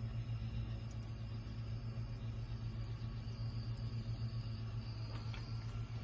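A steady low background hum, unchanging in pitch and level.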